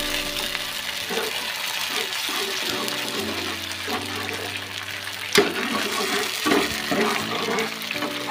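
Metal spatula stirring and scraping through onions and a thin, watery tomato-chilli sauce as it simmers in a non-stick wok, with a sharp knock of the spatula about five seconds in and a few lighter ones after. Background music with sustained notes plays underneath.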